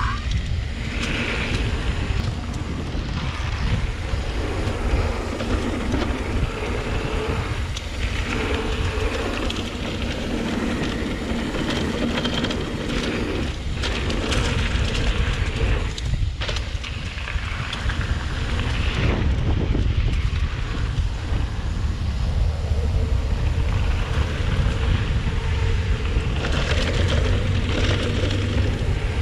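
Wind rushing over the microphone, with tyre noise and rattle from a Trek Rail 7 electric mountain bike riding fast down a downhill trail. The sound is a steady, loud rush with a deep rumble.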